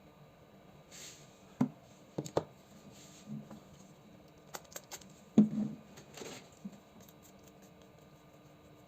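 Plastic parts of a PS4 controller being handled: scattered clicks and knocks, two of them louder, and a few short soft scrapes.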